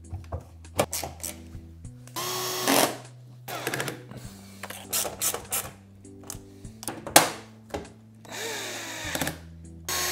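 Electric drill-driver driving screws into a washer-dryer's front panel, in short runs with a brief whine about two seconds in and again near the end, amid clicks and knocks of screws and parts being handled. Background music plays underneath.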